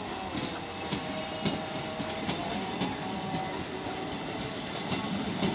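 Passenger train coaches rolling past on departure: a steady rumble of wheels on rails with scattered clicks over the rail joints.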